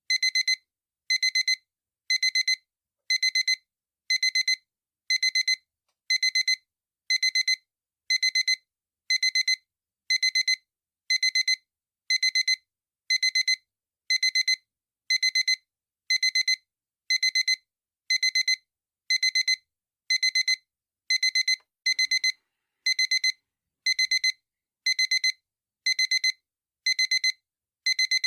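Digital alarm clock beeping: a short burst of quick, high-pitched electronic beeps repeating about once a second, steady and unchanging.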